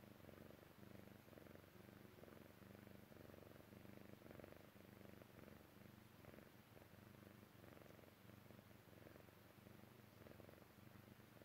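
Persian chinchilla cat purring softly while drowsing, a low purr that swells and eases in a steady rhythm with its breathing.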